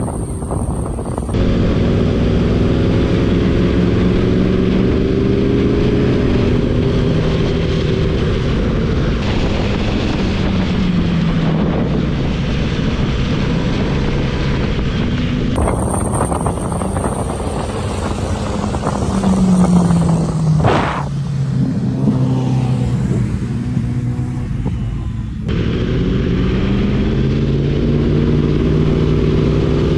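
Sport motorcycle engines under way, the engine note rising and falling with throttle and gear changes.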